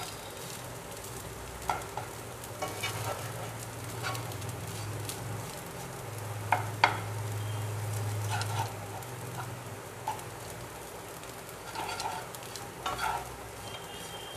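Spatula stirring and scraping flattened rice (poha) in a nonstick frying pan, with a light sizzle of frying underneath. The spatula knocks against the pan at irregular intervals every second or two, loudest twice in quick succession about halfway through.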